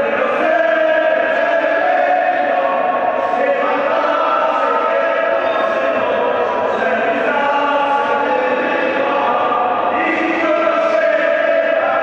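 Several voices singing together in long held notes that shift in pitch every second or two, choir-like.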